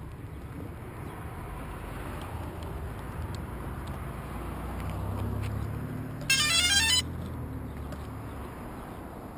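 Quadcopter drone's startup chime: a quick run of electronic beeps stepping up in pitch, lasting under a second, about six seconds in. A low rumble swells and fades underneath.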